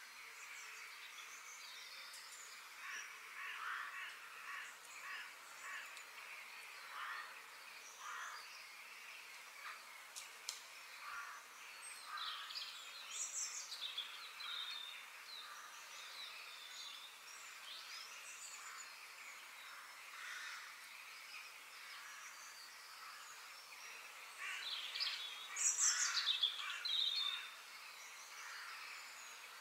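Faint bird chirps and calls over a light hiss, scattered irregularly and loudest near the end.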